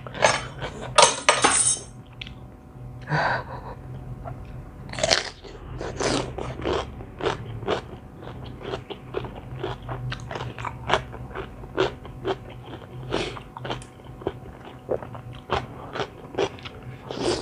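Close-up chewing of crunchy raw vegetables eaten with a spicy seafood rice-noodle salad: a crunch every second or so, the loudest bites in the first two seconds. A steady low hum runs underneath.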